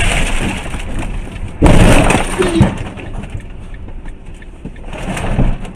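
A car collision: a sudden loud crunching impact about a second and a half in that dies away over the next second, with a smaller knock near the end.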